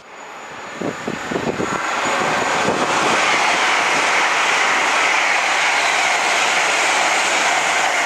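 A train passing close by at speed: a swelling rush of noise with a quick run of wheel clatter in the first few seconds, then a steady, loud rush.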